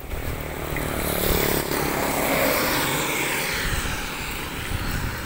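Rushing noise of heavy rain over a wet road, with wind rumbling on the microphone. It swells about a second in and eases off after about three seconds.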